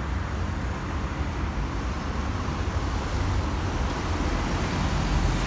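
Road traffic noise: vehicles passing on a nearby road make a steady rumble that grows a little louder near the end.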